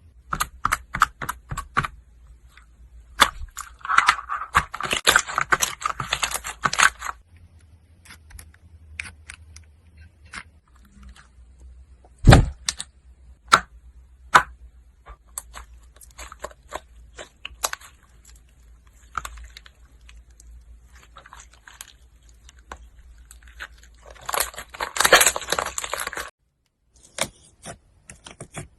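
Slime being worked by hand: a string of sharp clicks and pops, with two spells of dense crackling and one heavy thud near the middle.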